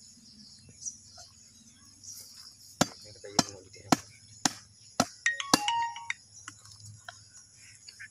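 A heavy chopping knife striking into a skinned cow head: six sharp chops about half a second apart, starting a little before the middle. A steady high chirring of insects runs underneath.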